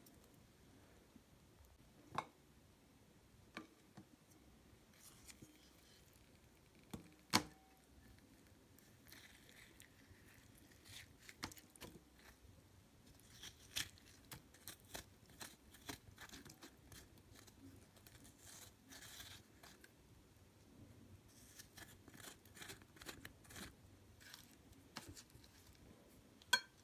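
Faint handling sounds of a metal spoon scooping cubed red dragon fruit flesh out of its skin into a glass bowl: soft scraping with scattered sharp clicks and taps, the loudest about seven seconds in and again near the end.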